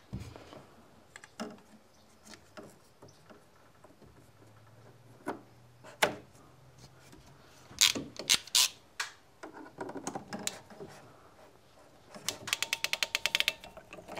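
PEX clamp tool being worked on an overhead water line: scattered clicks and knocks, then near the end a rapid run of ratchet clicks, about fifteen a second, as the handles are squeezed to close the clamp.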